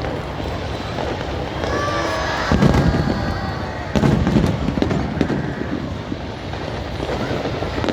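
Fireworks going off: two loud bangs, about two and a half and four seconds in, each followed by crackling, over steady crowd noise.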